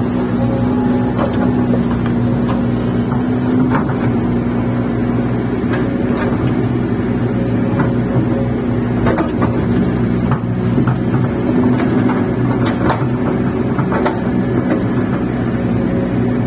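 Kobelco excavator's diesel engine running steadily, heard from inside the cab, with scattered knocks and rattles on top.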